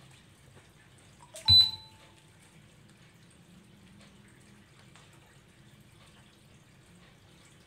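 A click followed by a short electronic beep about one and a half seconds in, then only a faint steady hum.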